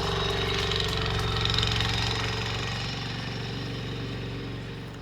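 Old tractor's engine running steadily as it plows snow, slowly growing fainter as it moves away.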